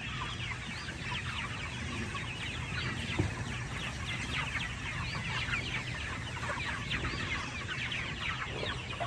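A flock of chickens calling steadily: many high, short peeping calls overlapping one another, with a single thump about three seconds in.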